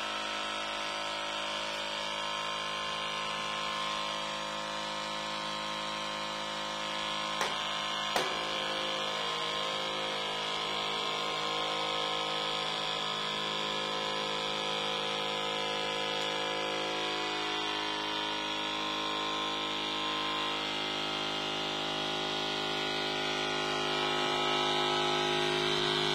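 A small DC motor running steadily and spinning the exhaust-fan motor coupled to it, giving a constant hum with many overtones. Two sharp clicks come about seven and eight seconds in, and the hum grows slightly louder near the end.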